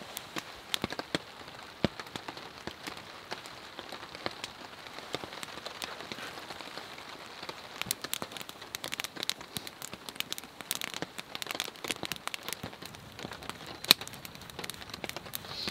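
Steady rain falling, with many irregular sharp drop impacts that grow denser about halfway through, and one louder click near the end.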